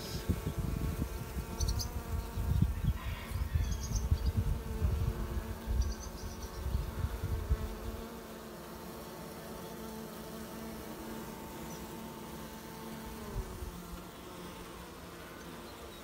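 Honeybees buzzing steadily as a swarm of workers covers a comb frame lifted out of an open hive. For about the first half, a low rumbling noise on the microphone sits under the hum, then stops.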